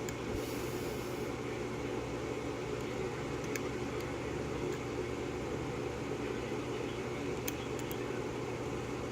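Steady low background hum, with a few faint sharp ticks of a lock pick working the pins inside a DOM euro half cylinder.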